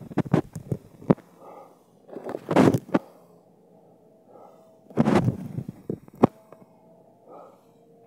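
Loud gusts of air buffeting the phone's microphone, one about two and a half seconds in and a longer one about five seconds in, with sharp clicks at around one second and just after six seconds.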